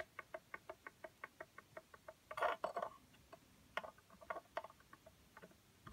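Metal fret rocker clicking as it is rocked back and forth across the frets of a Les Paul-style guitar neck, rapid light ticks at about eight or nine a second, then a brief rustle and a few slower clicks. The rocking shows an uneven, high fret, here a really quite bad one.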